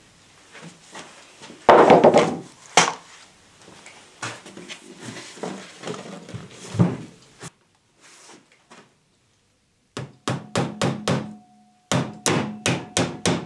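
Particleboard cabinet panels being handled and knocked on the workbench, with one loud thud about two seconds in. After a short pause, a claw hammer drives a small nail into the panel with quick taps, about four a second, each leaving a light ring.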